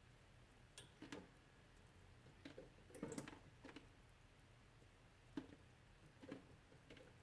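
Melting ice dripping: faint, irregular drops of water falling one at a time, a few seconds apart, with a quick cluster of drips about three seconds in.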